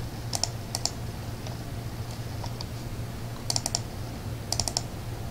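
Clicking on a laptop: short sharp clicks in quick runs of two to four, a second or so apart, over a low steady hum.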